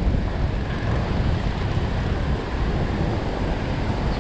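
Steady rush of churning white water, with wind buffeting the microphone.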